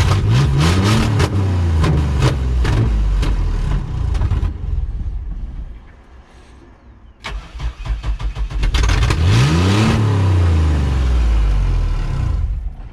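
Chevy Blazer engine being started after sitting in the cold, twice: each time it catches roughly, sputtering and crackling, revs up and sinks back down, with a quiet pause of about two seconds between the attempts. It runs rough and won't stay running, which the owner calls running dirty.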